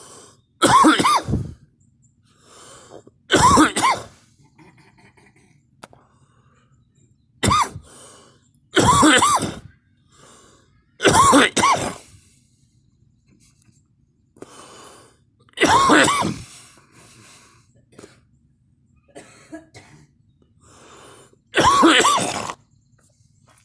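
A person coughing hard in bouts, one or two harsh coughs every few seconds, about eight loud coughs in all, with quieter throat sounds between.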